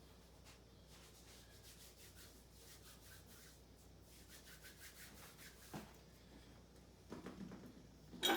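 Faint rubbing and shuffling handling noises, with a thump a little under six seconds in, then small clicks and a sharp knock near the end.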